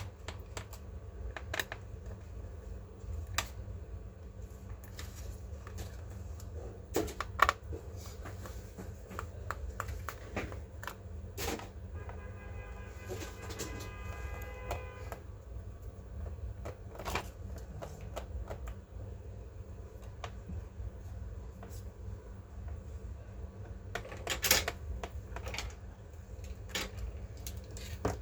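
Irregular clicks and taps of small hardware being handled on a laptop, over a low steady hum, with a brief pitched whir about twelve seconds in and a louder cluster of clicks near the end.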